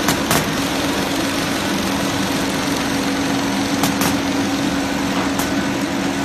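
FS Shark 500 stacker running while feeding cigarette-pack blanks: a steady machine hum with a held low tone, broken by a few sharp clicks, two right at the start, two about four seconds in and one a little later.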